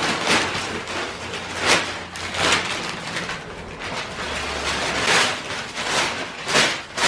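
Paper rustling and crinkling as a folded instruction sheet and its packaging are pulled out and unfolded, in a string of irregular swishes.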